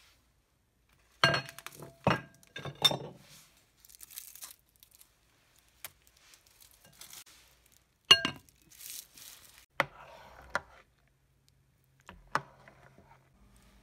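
A spoon stirring thick porridge in a ceramic slow-cooker crock, knocking and clinking against the crock's sides about six times, with softer scraping between the knocks.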